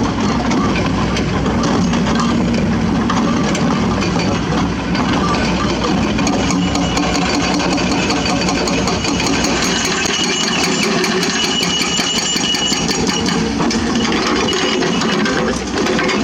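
Excavator's diesel engine running steadily, with a rapid light ticking from about six seconds in.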